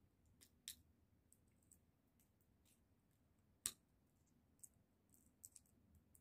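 Faint, scattered clicks and cracks of salted sunflower seed shells being split between the teeth and picked apart with the fingers, the sharpest crack about three and a half seconds in.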